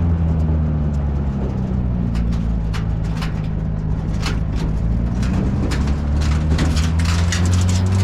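An engine running steadily, its low hum drifting slightly in pitch, with frequent short rattles and knocks over it.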